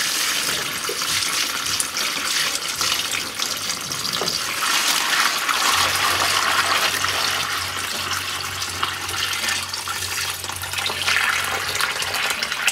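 Water pouring from a blue plastic container into a plastic-lined hydroponics growbox, a steady splashing gush as the 10-liter nutrient reservoir is filled.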